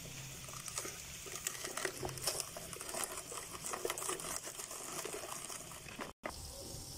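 Garlic cloves being crushed through the stainless-steel blade grid of a red plastic manual vegetable chopper: a run of irregular small crunches and clicks.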